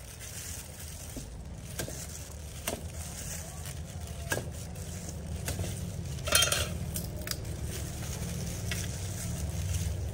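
A cleaver hacking at a sugarcane stalk to cut off its leafy top: irregular sharp knocks with scraping in between, the loudest knock about six seconds in, over a steady low rumble.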